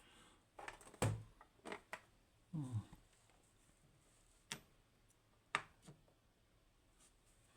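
Scattered light clicks and taps, about half a dozen, from the small metal parts of a disassembled pin tumbler lock's plug being handled and turned over.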